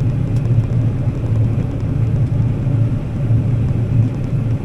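Combine harvester running steadily while cutting wheat with a 25-foot header: a steady low drone.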